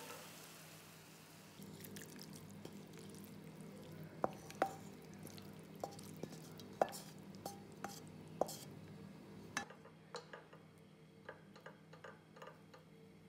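Cooked chicken pie filling being scraped out of a stainless steel frying pan into a ceramic bowl: a run of sharp clinks and knocks with short ringing, utensil on pan and bowl, from about four to nine and a half seconds in. A faint sizzle fades away at the start.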